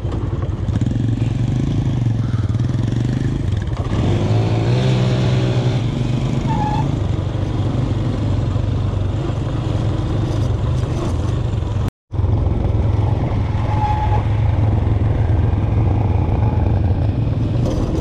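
Motorcycle engine running while riding on a dirt track, its pitch climbing with the revs a few seconds in. The sound drops out briefly about twelve seconds in.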